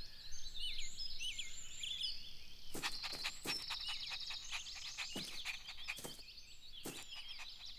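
Outdoor ambience of small birds chirping and trilling in short high calls, with light taps scattered through the second half.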